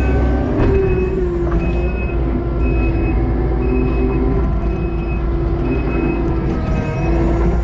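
Kubota SVL90-2 compact track loader's diesel engine running under load with hydraulic whine, while its backup alarm beeps about once a second as it reverses.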